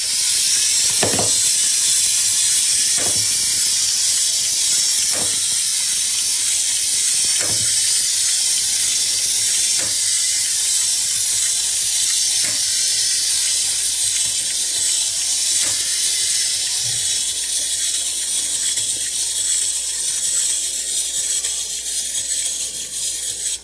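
Loud steady hiss, with a faint soft thump about every two seconds.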